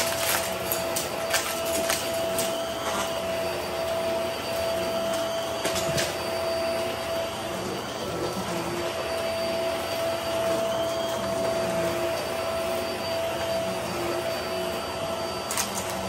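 Hart Pro upright vacuum cleaner running steadily on carpet, its motor holding one even hum. It is picking up crunchy debris, heard as scattered sharp clicks and rattles, most in the first few seconds, about six seconds in and again near the end.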